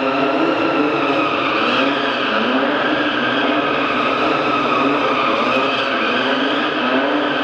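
A car engine revving hard, its pitch repeatedly rising and falling, with tires skidding as the car drifts through its own tire smoke.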